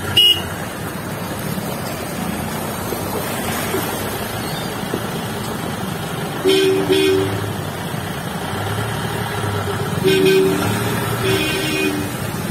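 Road traffic wading through floodwater: a steady rush of engines and churned water. Vehicle horns honk over it, a short double toot about halfway through, then a longer honk and a string of short beeps near the end.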